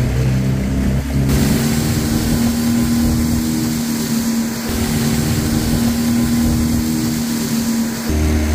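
Outboard motor of a small metal skiff running at a steady speed, a continuous drone, with water spray hissing off the hull from about a second in.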